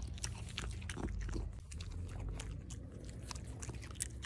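A Jack Russell–Jindo mix dog chewing lamb up close, a quick irregular run of crunches and clicks.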